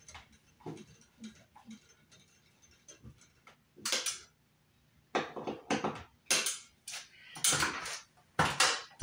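Light metallic clicks and taps of a screwdriver working at a metal ceiling electrical box. One louder knock comes about four seconds in, then a run of heavier knocks and scuffs as the worker steps down from the box.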